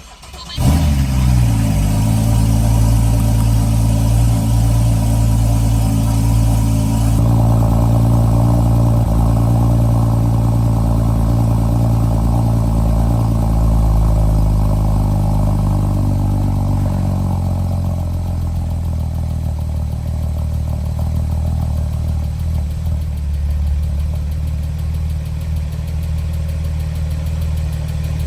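Porsche Boxster 981S 3.4-litre flat-six starting about half a second in, its revs flaring and then settling into idle. The idle steps down about 7 seconds in and again about 18 seconds in, then runs steadily.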